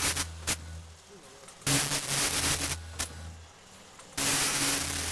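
Vertical form-fill-seal packaging machine cycling. A loud burst of noise about a second long is followed by a sharp click, repeating about every two and a half seconds over a low hum.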